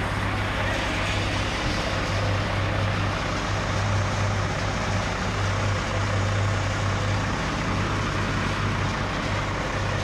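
Stationary diesel engine that powers a sawmill's band saw, running steadily with a low, even hum.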